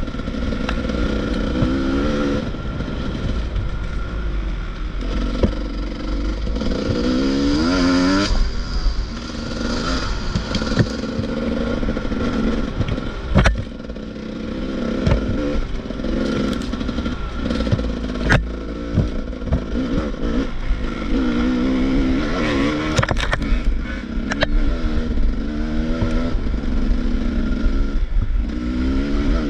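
Enduro motorcycle being ridden off-road, its engine revving up and dropping back over and over as the rider works the throttle, with a few sharp knocks and clatter from the bike over rough ground.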